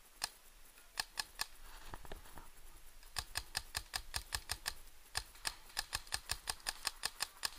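Paintball markers firing: scattered sharp pops at first, then a quick run of about five shots a second from about three seconds in.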